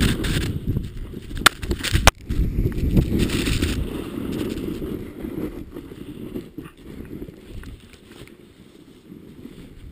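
Snowboard sliding through deep powder snow: a steady low rush that fades over the second half, with two sharp knocks about one and a half and two seconds in.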